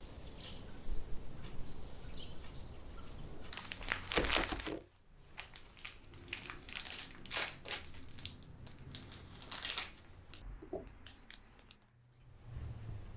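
Crinkly plastic wrapper being rustled and crumpled in the hands as a packaged rice cake is unwrapped. It comes in irregular bursts, loudest about four seconds in and again in the middle.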